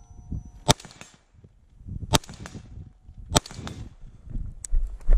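Semi-automatic rifle shots from a piston-operated LMT RA20: three sharp shots about a second and a half apart, each with a short echo, then a fainter crack and another shot at the very end.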